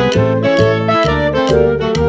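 Instrumental background music with a steady beat of about two beats a second.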